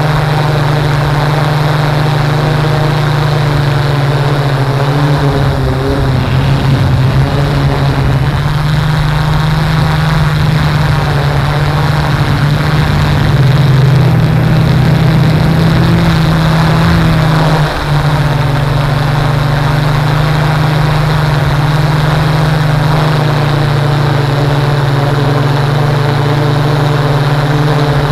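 Steady drone of the motor and propeller of the aircraft carrying the camera, heard from on board and mixed with rushing air. The pitch holds steady and dips briefly once, about eighteen seconds in.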